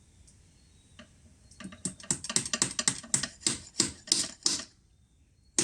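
A quick run of sharp taps, about four to six a second for some three seconds and slowing towards the end, as two small locking pins are tapped into place on an outboard lower unit's water pump base.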